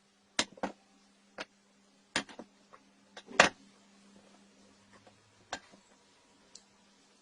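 Irregular sharp knocks and clicks, about eight in all, the loudest about three and a half seconds in, like hard objects being handled and set down, over a faint steady hum.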